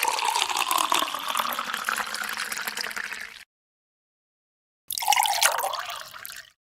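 Running, pouring water that stops abruptly a little over three seconds in. After a short silence, a second, shorter burst of running water follows.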